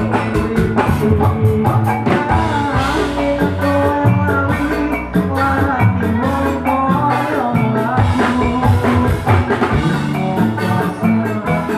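Live band music played loud through a stage PA, with a male singer over a drum kit keeping a steady beat.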